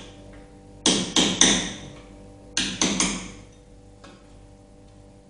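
Sharp knocks in two quick groups of three, about a second and a half apart, each fading out briefly.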